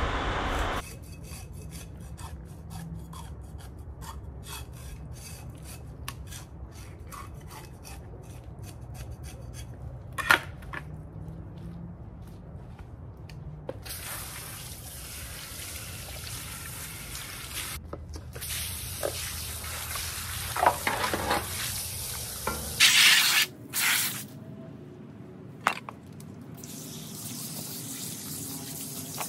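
Kitchen work at a sink: rubbing and scraping with many small clicks, and tap water running in two spells, about halfway and near the end. A few louder knocks and clatters stand out, the loudest about three-quarters of the way in.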